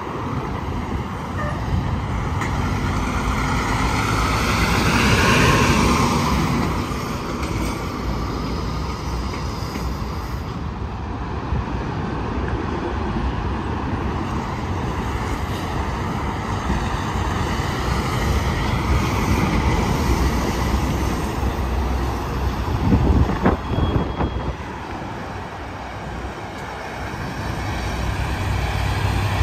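Interstate highway traffic, with tractor-trailers passing and steady tyre and engine noise. One vehicle grows loud and falls in pitch as it goes by about five seconds in, and there is a short run of loud knocks or thumps about three-quarters of the way through.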